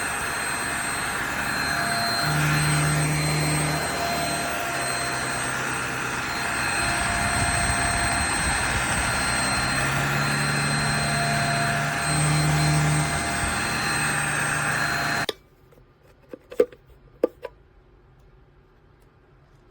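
Handheld mattress vacuum cleaner running: a steady high motor whine over rushing suction air, with a low hum that swells at times. It is switched off about three-quarters of the way through, and a few small clicks follow.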